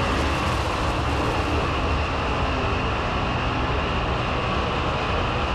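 410 cubic-inch sprint car V8 engine running flat out under racing load on a dirt oval, a steady dense roar with no clear rise or fall in pitch.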